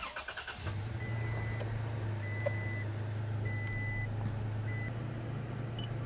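Toyota Tacoma's engine cranks briefly and starts, then idles with a steady low hum. A dashboard warning chime beeps four times at an even pace, the last beep cut short.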